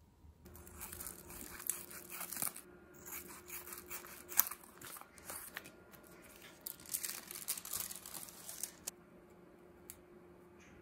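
Plastic sleeves and card sheets of pressed flowers rustling and crinkling as they are handled, with one sharp tap about four seconds in. The rustle dies down to a few faint ticks about nine seconds in, as a thin pressed larkspur flower is peeled off its sheet.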